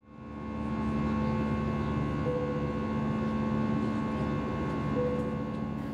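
Airliner cabin noise in flight: a steady engine and airflow drone with several held tones, fading in over the first second.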